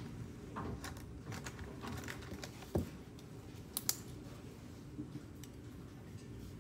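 Pen on workbook paper: light scratching strokes and small taps while writing. A soft thump comes a little before the middle, then two sharp clicks in quick succession as pens are handled: the blue pen is set down and a white pen is picked up.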